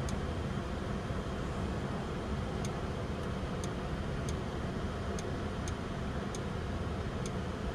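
Steady low hum inside the 2022 Audi Q5's cabin, with faint, sharp clicks every half second to second from about two and a half seconds in, as the infotainment touchscreen is tapped.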